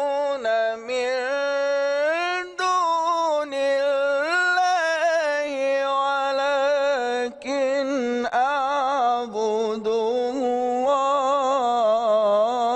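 A man reciting the Quran in a slow melodic chant, holding long, ornamented notes that waver and turn in pitch, with only brief breaks for breath.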